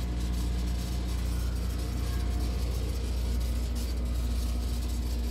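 Steady low machine hum, with a few faint steady tones above it.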